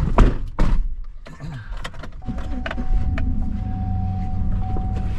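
Two heavy thumps of car doors closing, then a vehicle runs with a steady low hum and a thin, steady high tone alongside.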